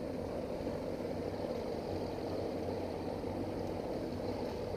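Motorboat engine running steadily at low speed, an even drone.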